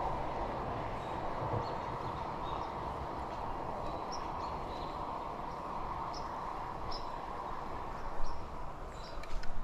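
Steady low rushing outdoor background noise with faint, short, high bird chirps scattered through it, and a few light knocks near the end.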